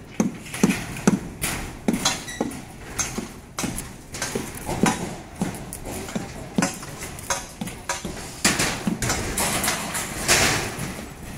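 Irregular knocks and taps on corrugated steel floor decking, several in quick succession and then scattered, with a louder clattering stretch about nine to ten and a half seconds in.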